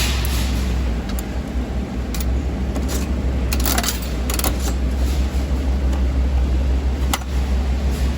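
A coin-operated vending machine being worked: sharp irregular clicks and clatters as coins go in and the mechanism turns to dispense a prize, over a steady low rumble.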